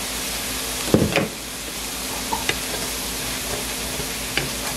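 Ground turkey with soy sauce and vinegar sizzling steadily in a hot pan while it is stirred, with a loud knock about a second in and a few light clicks of the utensil later.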